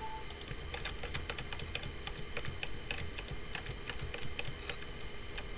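Computer keyboard keys clicking in a quick, irregular run as typed text is deleted key by key.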